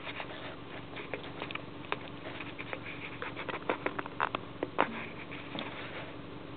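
Camera handling noise: irregular clicks and taps, loudest about four to five seconds in, as the camera is moved and settled, stopping shortly before the end. A steady low hum runs underneath.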